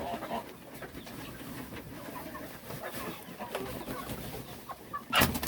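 A flock of chickens clucking softly with scattered short calls, then a loud rustling noise near the end.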